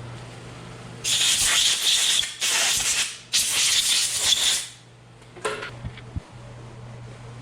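Three hissing bursts of pressurised spray, each about one to one and a half seconds long, followed by a couple of light knocks.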